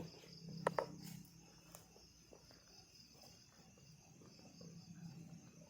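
Night insects, crickets, trilling steadily and faintly. Two short sharp squeaks come close together just under a second in.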